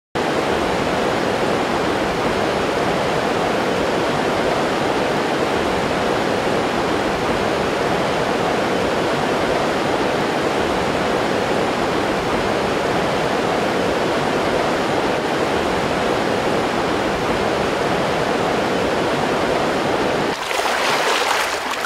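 Fast-flowing water of the Pastaza River rushing steadily. It changes to a brighter, thinner rush about twenty seconds in.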